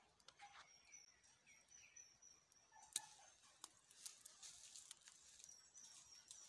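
Faint clicks and light rustles of fingers picking dried coffee cherries off the branches, with one sharper click about three seconds in. A thin high call is held for about two seconds behind them, and again near the end.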